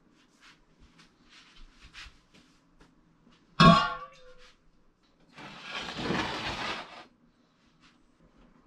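A person coughs once, sharply, about three and a half seconds in, the sound falling away in pitch like a groan; then comes a long breathy exhale lasting about a second and a half. Faint rustling and clicks come before the cough.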